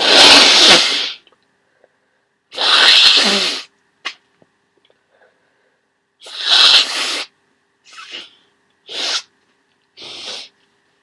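A person with a congested head cold sneezing wetly three times in quick succession, each sneeze a loud burst about a second long. Several shorter, quieter bursts follow.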